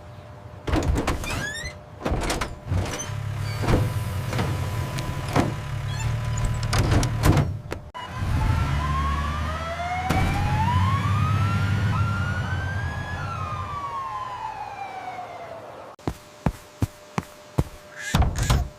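Vehicle engine rumble mixed with clicks and knocks. About eight seconds in, a siren wail rises and then falls over the engine. Near the end come a handful of separate sharp clicks.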